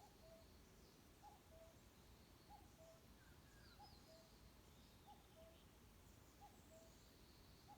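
Faint forest birdsong: one bird repeats a low two-note falling call about every second and a quarter, with scattered high chirps and trills of other small birds over a soft background hiss.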